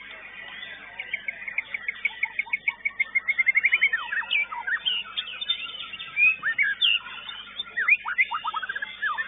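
Caged songbird singing: a varied string of quick whistled chirps and sweeping notes, with a fast run of rapidly repeated notes about two to three seconds in.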